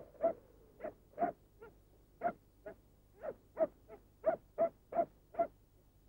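A dog barking repeatedly: short, sharp barks at about two a second, at an uneven pace.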